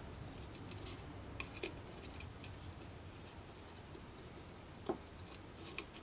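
A few faint, short clicks and taps from hands handling a squeeze bottle of glue against a wooden workpiece, twice: about a second and a half in and again near five seconds. Under them runs a low steady hum in a quiet room.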